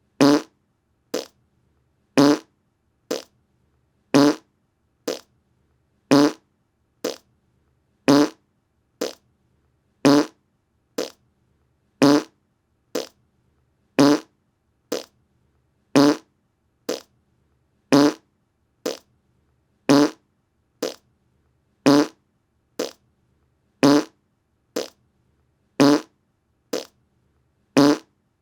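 Fart sound effect repeated in a loop: a short loud fart about every two seconds, each followed about a second later by a shorter, quieter one.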